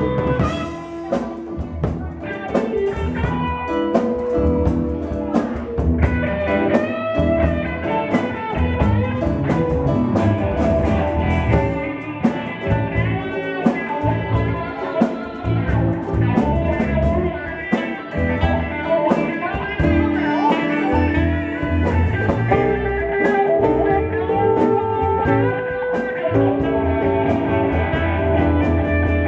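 Live blues band playing an instrumental passage, led by a guitar with drums behind it.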